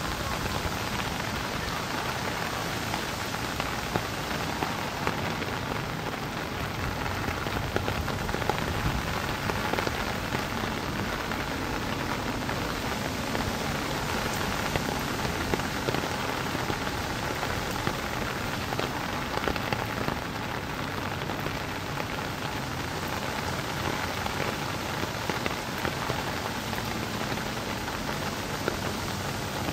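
Steady rain, a continuous hiss with many small sharp ticks of drops landing.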